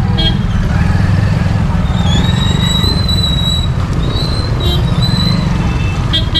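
Road traffic of motorbikes and auto-rickshaws starting to move off, under a steady low engine rumble. A thin, high, steady whistle-like tone sounds over it from about two to five seconds in.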